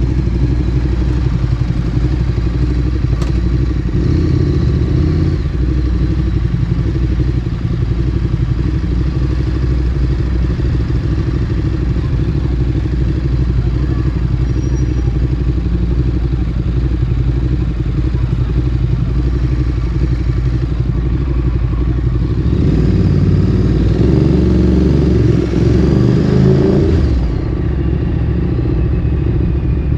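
Ducati Streetfighter 848's L-twin engine through a Termignoni exhaust, running steadily at low revs. About 22 seconds in it revs up and accelerates hard, the pitch rising for several seconds, then eases off near the end.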